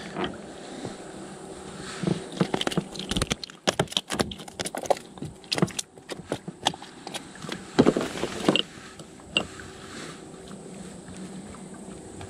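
Handling noises of fishing tackle with a freshly landed small sabre carp: an irregular run of clicks, taps and light rattles, thickest in the middle of the stretch, over a faint steady hiss.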